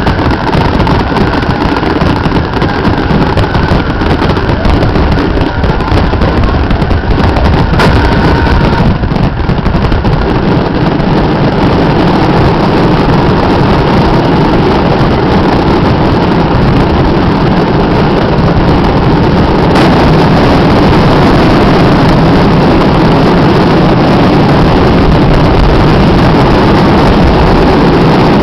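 Fireworks finale: a rapid, overlapping barrage of shell bursts, loud throughout. The bursts come thick and fast at first, then merge into a steady, louder rumble from about halfway through.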